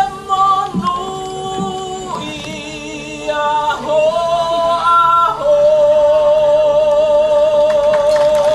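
Choir singing, the voices moving through several sustained notes and then holding one long note with vibrato through the second half.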